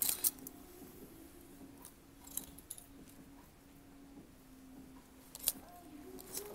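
Clothes hangers clinking on a metal store rack as jeans are pushed along and handled: a few sharp clicks over a faint steady hum.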